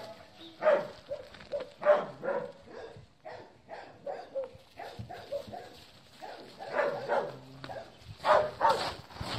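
Several dogs barking and yipping in short, irregular bursts during rough play. The loudest barks come about a second in, around two seconds in, and near the end.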